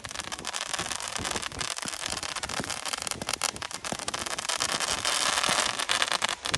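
Fireworks crackling: a dense, rapid stream of small pops and crackles, growing louder toward the end.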